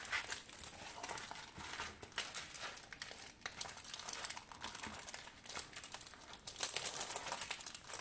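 Crinkling and rustling of a diamond-painting canvas, with its plastic cover film and paper backing, as hands flatten it and fold it over, in short irregular rustles that come thicker near the end.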